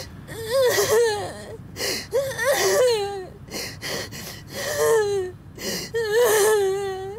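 A woman crying hard. Several wavering, pitched wailing sobs are broken by sharp, gasping intakes of breath.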